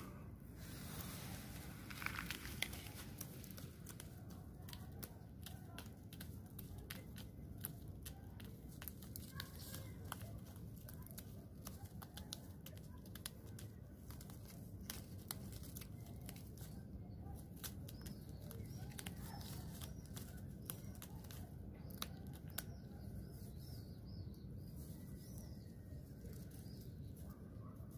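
Close rustling and crackling with many small clicks over a low steady rumble, and faint bird chirps in the second half.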